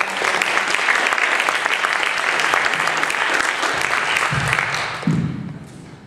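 Audience applauding in a theatre hall, a dense patter of clapping that fades away near the end, with two short low thumps as it dies down.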